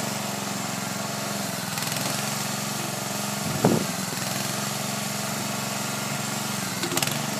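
Homemade backhoe's small engine running steadily. About halfway through there is a loud thump as a bucketload of gravel drops into the pickup's dump bed, and a few smaller clanks come near the end.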